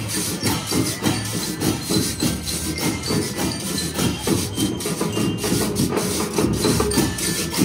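School marching band playing live: drums keep a steady beat, with short ringing high notes over it, likely from the bell lyres the players carry.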